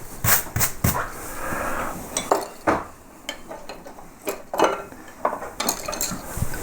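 Small hand carving gouges and chisels cutting into wood: a string of short, sharp cuts and clicks at irregular intervals, a few drawn out into a brief scrape.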